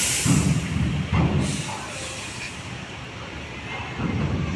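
Heavy truck's air brakes hissing, once sharply at the start and again about a second and a half in, over the low running of a diesel engine.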